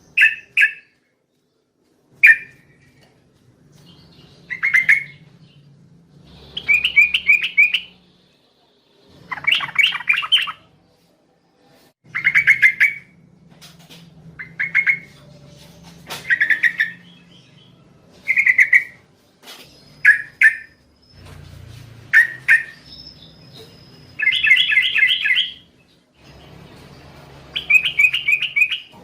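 Yellow-vented bulbul (trucukan) singing: a string of short, bubbly, chattering phrases, one every couple of seconds, some as quick runs of rapid notes.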